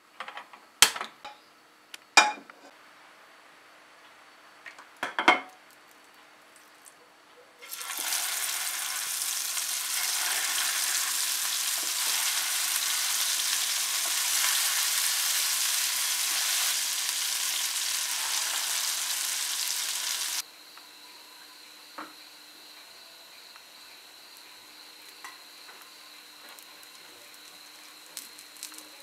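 Three sharp clicks, then vegetable kabab patties shallow-frying in hot oil in a nonstick pan. The sizzle is loud and hissing for about twelve seconds, then cuts off suddenly to a quieter, steady sizzle.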